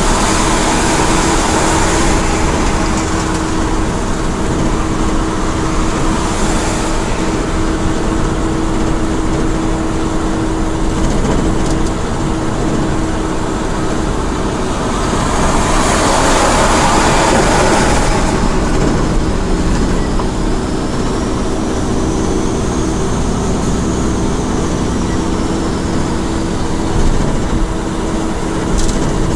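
Mitsubishi Fuso heavy truck cruising, heard from inside the cab: a steady drone of engine and tyre noise with a constant low hum. The noise swells for a few seconds about sixteen seconds in.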